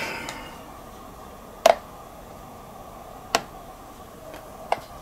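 Sharp clicks from an RS-918 HF SDR transceiver (an mcHF clone) as it is switched on, three of them about one and a half seconds apart, with a couple of fainter ticks between.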